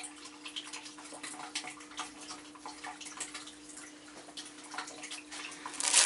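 Soft rustling of cloth and small handling clicks as costume trousers are folded, over a steady low hum. Near the end, loud crinkling of plastic packaging as it is handled.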